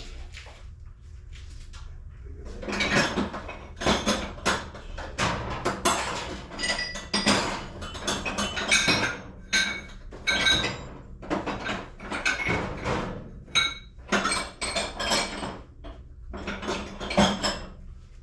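Metal parts clinking and knocking together as they are handled and set down: a long run of short knocks, many with a brief metallic ring.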